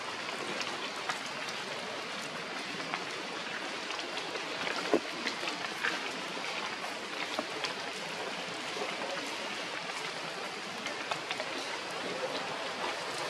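Steady outdoor noise, a hiss with many scattered small crackles and ticks.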